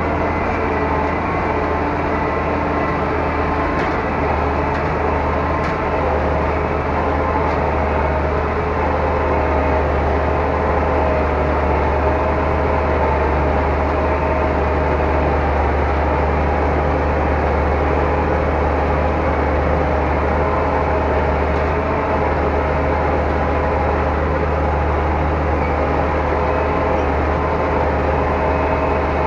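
Zetor 12145 tractor's diesel engine running steadily under load while pulling a drag harrow across a field, heard from inside the cab as a deep, even drone.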